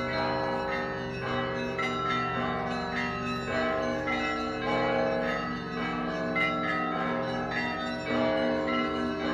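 Russian Orthodox bell ringing on a monastery belfry's 17 bells, played by one ringer with ropes and a foot pedal: many small bells struck in quick overlapping patterns while the low tones of the large bells ring on beneath.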